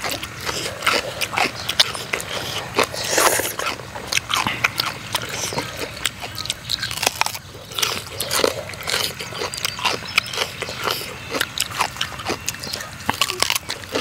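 Close-miked mouth sounds of eating a wet, spicy noodle and seafood salad: chewing and lip-smacking, with many short clicks.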